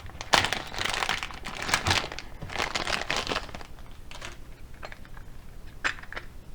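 Plastic packaging crinkling in two bursts, as a small bag of screwdrivers that came with a replacement display is opened, followed by a few light clicks near the end.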